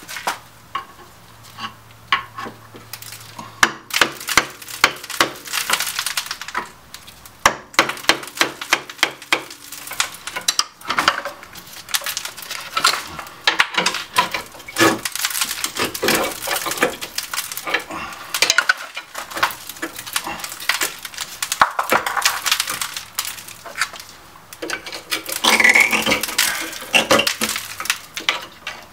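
Metal hand tools clanking, knocking and scraping on the rusted, seized rear brake caliper of a 2004 Jeep Liberty as the stuck piston is pried and tapped loose. The knocks are many, sharp and irregular and begin a few seconds in.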